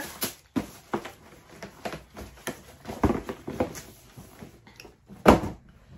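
Handling noise: scattered light knocks and rustles as items are moved and set down, with one louder thump a little after five seconds in.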